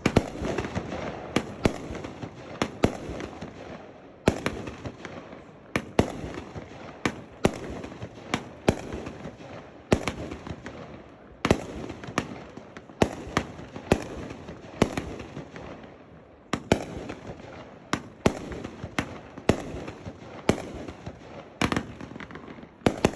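Tako brand Silver and Gold aerial firework firing shot after shot: a sharp bang every half second to second and a half, irregularly spaced, with echoing rumble and hiss between the bursts.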